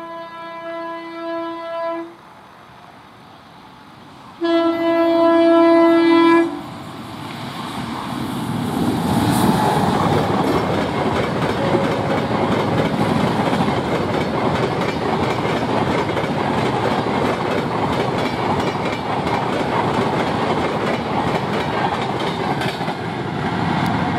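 An Indian Railways WAP-7 electric locomotive sounds its horn twice, the second blast louder. Then the express's coaches pass at high speed with a loud rushing rumble and the rapid clickety-clack of wheels over the rails.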